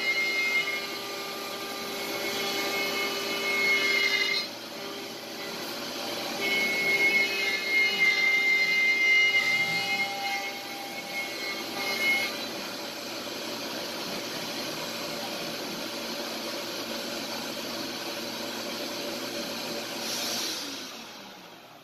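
Shark HD510 CNC router's water-cooled spindle cutting wood, over the steady rushing of a vacuum hose at the bit. A high whine comes in twice, each time for several seconds, and the running noise falls away sharply near the end.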